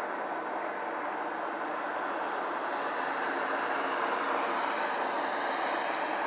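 Helicopter overhead, its steady drone swelling slightly midway and easing off again.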